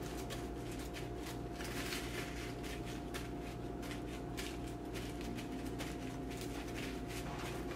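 Paper towel rustling and crinkling as it is folded over a plate of fried bacon, over a steady low electrical hum.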